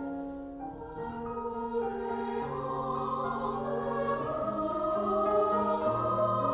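Background choral music: a choir sings slow, long-held notes that swell louder through the second half.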